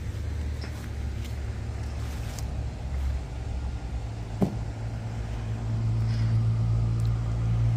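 Low engine rumble of an approaching vehicle, growing louder through the second half. A single short knock about four and a half seconds in.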